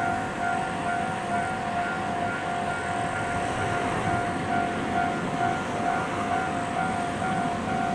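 Level-crossing alarm bell ringing as a train approaches: an even, repeated electronic ring, about two a second, over a steady rushing background.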